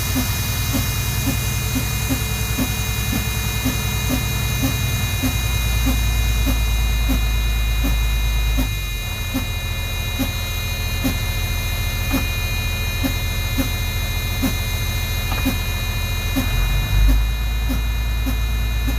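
Air compressor running steadily, with a regular tick about twice a second and a brief louder surge near the end. The owner suspects a stuck-open unloader valve is keeping it from building air.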